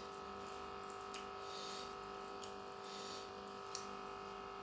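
Soft, wet handling sounds of bare fingers tearing fried gourami and pressing it into sambal on a plate, with a few small clicks, over a steady background hum.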